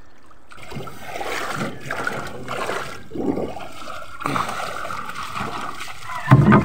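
Water splashing and sloshing around a small wooden outrigger boat in shallow water, in irregular surges a little under one a second, with one loud thump near the end.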